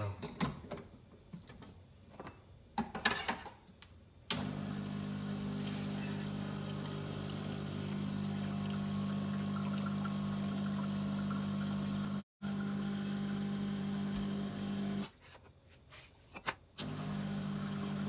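After some clicks and knocks as the portafilter is locked in and a cup set down, the espresso machine's pump starts about four seconds in. It hums steadily as it pushes water through the group head and portafilter, flushing the machine after descaling. It cuts out briefly near the end and starts again.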